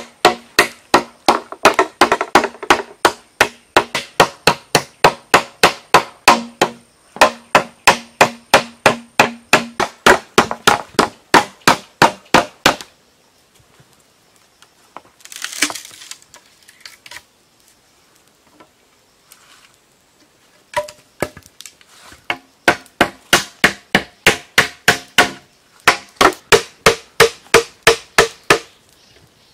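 Rapid strikes of a hand-held tool on a hollow green bamboo pole, about three a second, each with a short hollow ring. The striking stops for several seconds midway, with one short rustle in the gap, then resumes.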